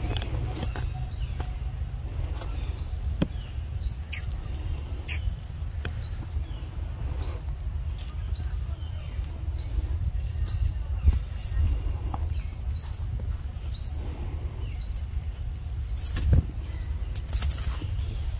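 A bird calling a short, high, rising chirp over and over, a little more than once a second, over a steady low rumble.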